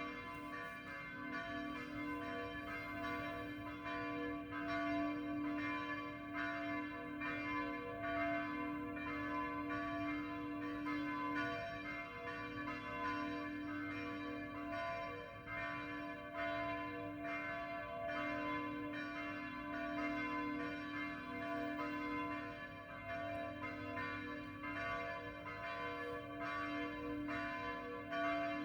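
Church bells rung by hand, ringing the call to dawn prayer: repeated strokes run into one another, so the ringing never dies away.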